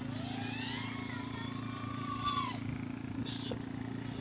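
FPV racing quadcopter's motors whining, the pitch climbing for about two seconds and then dropping away sharply as it flies past. A steady low hum runs underneath.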